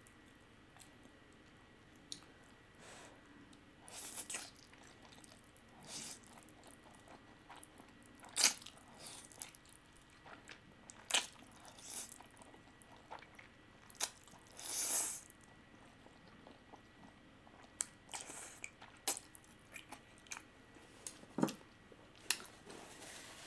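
Close-miked eating sounds of spicy fire noodles being slurped and chewed: scattered wet mouth smacks and clicks, with one longer slurp partway through.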